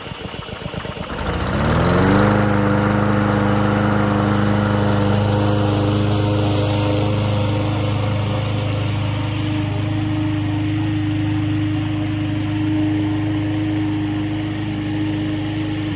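Bolens push lawn mower's 125 cc Briggs & Stratton engine catching on the pull cord and revving up over the first two seconds to a steady, even run. Near the end the engine winds down and stops.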